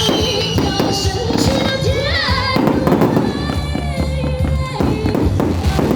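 Fireworks going off, with frequent sharp bangs and crackles, over music playing.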